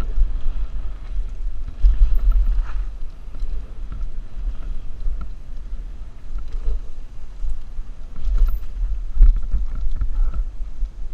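Wind rumbling and buffeting over a helmet-mounted camera on a fast mountain-bike descent, rising and falling in gusts. Short knocks and rattles from the Mongoose Pinn'r bike over rough trail come in here and there, loudest about two seconds in and again about nine seconds in.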